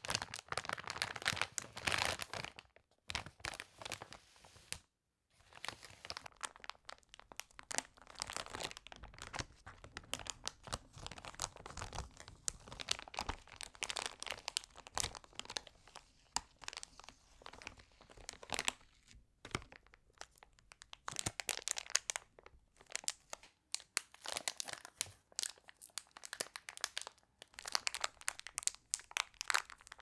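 Plastic gummy-candy bags crinkled and squeezed by hand, in dense, irregular bursts of crinkles with short breaks about 3 and 5 seconds in.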